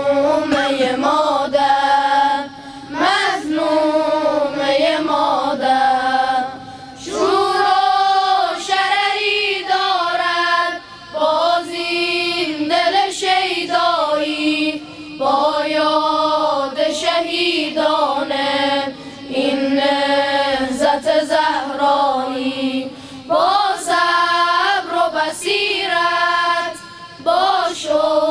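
Boys' choir singing a devotional madih chant together in long phrases with short breaks between them.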